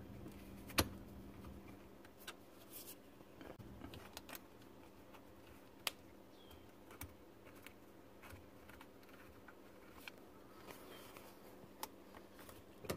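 Scattered faint clicks and taps of hands handling a rubber dishwasher drain hose and its metal hose clamp on a garbage disposal inlet, over a low steady hum.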